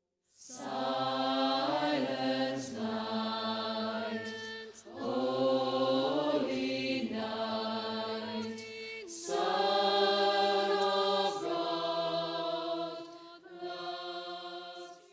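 A choir singing a slow Christmas carol in long held notes, phrases of two to four seconds with short breaks between; it begins about half a second in and fades near the end.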